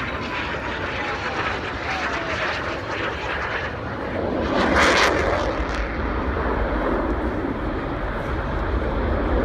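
Jet noise from Blue Angels F/A-18 Hornets flying past: a steady loud rush with a whine that falls in pitch in the first couple of seconds, swelling to its loudest about five seconds in, with a low rumble building near the end.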